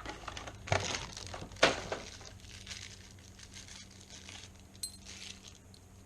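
Metal lock parts of a knob lockset clinking and knocking as they are handled and turned into place, with two sharper knocks in the first two seconds, then lighter clicks and rustling.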